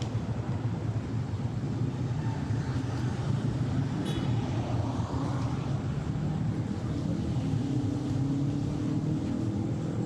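Road traffic: a steady rumble of passing vehicles, with one engine rising in pitch over the last few seconds as it speeds up.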